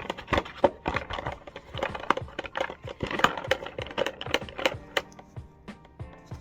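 Rapid, irregular clicking and clattering of small hard objects being handled, several sharp knocks a second, over faint background music.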